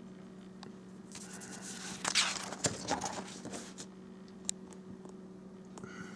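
A page of a spiral-bound paper booklet being turned by hand: paper rustling and crackling for about two and a half seconds, starting about a second in, with a few small clicks afterwards. A steady low hum runs underneath.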